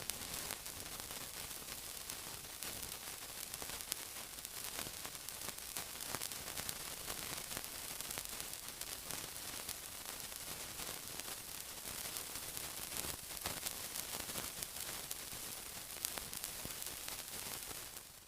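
Steady sizzling hiss peppered with many small crackles and pops, cutting off abruptly at the very end.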